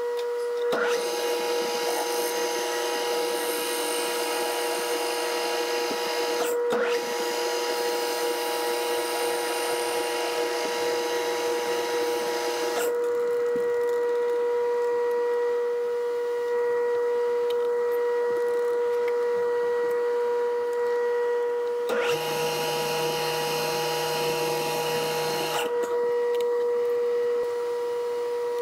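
Metal lathe running with a steady whine while a turning tool faces the end of a metal pin: a hissing cut for about twelve seconds with one short break, then a second, shorter cut a few seconds before the end.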